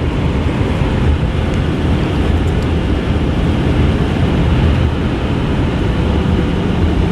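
Steady in-cab noise of a 2010 Ford F-450 diesel truck cruising on the road: a low, even engine drone mixed with tyre and wind noise.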